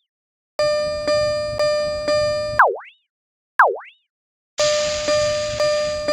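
Electronic railroad crossing alarm ringing its 'kan-kan' bell tone, about two strikes a second. Between runs of strikes, single tones sag in pitch and swoop back up, a warped, wobbly version of the alarm. A hiss joins the strikes for about a second in the second run.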